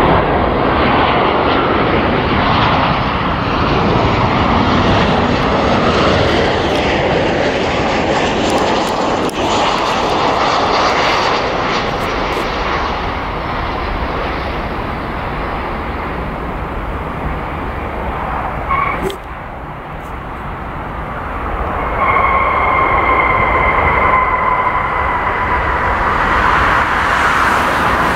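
Jet engines of a landing twin-jet airliner, a continuous roar as it flies in and rolls out. About two thirds of the way in the roar swells again, with a whine that slides slightly lower in pitch.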